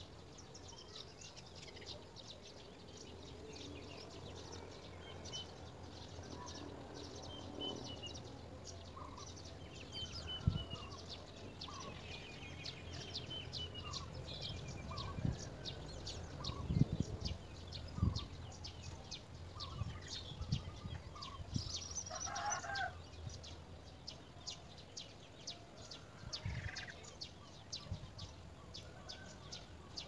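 Outdoor birdsong background: small birds chirping with many short high ticks and calls, and a rooster crowing once about two-thirds of the way through. A few low thumps come in the middle.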